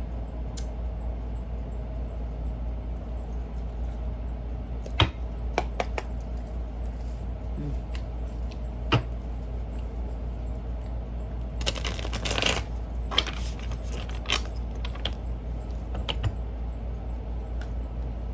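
Tarot cards handled on a table: scattered sharp taps and clicks, then a brief rapid flutter of cards about twelve seconds in, over a steady low hum.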